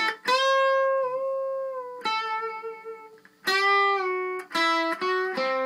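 Unaccompanied electric guitar playing a slow single-note lead phrase of about five notes, some held with vibrato and slight bends.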